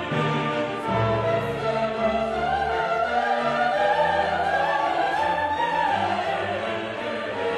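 Classical background music: an orchestral piece with an operatic solo voice singing one long phrase that rises and falls.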